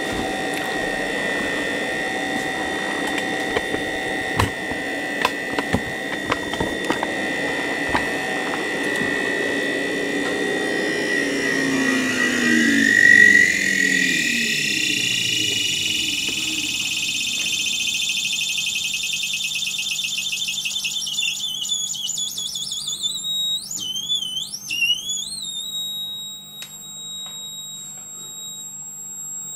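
Electronic whine from a Bedini-style self-oscillating fan motor circuit as it is adjusted by hand. Its tones slide in pitch through the middle, sweep upward, and settle into a high steady whine near the end. There are a few clicks early on. It is being retuned to draw less current.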